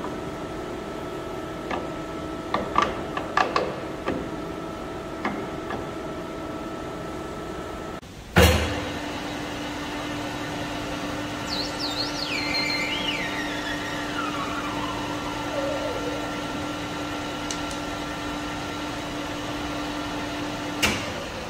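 Metal lathe running at 370 RPM while a parting tool cuts off a nylon rod. A few clicks in the first five seconds, a loud clunk about eight seconds in after which the hum settles to one steady tone, then a whistle from the cut that falls steadily in pitch over about four seconds.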